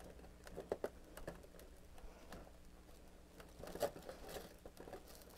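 Faint taps, clicks and scrapes of fingers picking at and prying open a small cardboard door on a toy advent calendar, with a few sharper clicks about a second in and again near four seconds.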